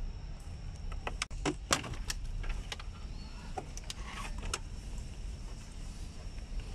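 Clicks, knocks and light rattles from hands handling a car's plastic dashboard trim and wiring connectors, bunched about one to two seconds in with more scattered clicks after, over a steady low hum.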